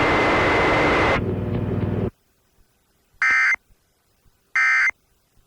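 A loud hiss that cuts off suddenly about two seconds in, then two short warbling data bursts of an Emergency Alert System SAME end-of-message code, a little over a second apart, which conclude the test.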